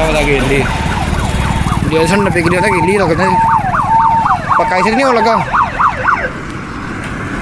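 A siren-type warbling tone, rising and falling quickly several times with short held notes, from about two seconds in until about six seconds, over a steady rumble of road and wind noise.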